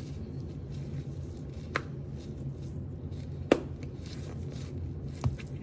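A seasoning jar being handled and shaken while seasoning meat, giving three sharp taps a second or two apart over a steady low hum.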